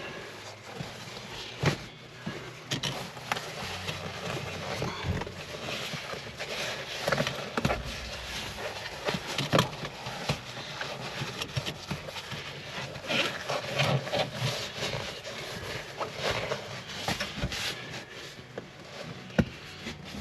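Hands working a seat cover onto a Jeep Wrangler seat: irregular rustling and scraping of the fabric, with scattered sharp knocks and clicks, the loudest near the middle and just before the end.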